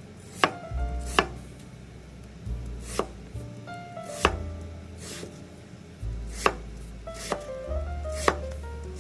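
Knife cutting vegetables on a cutting board: about eight separate, unhurried chops spaced irregularly, over soft background music with a steady bass line.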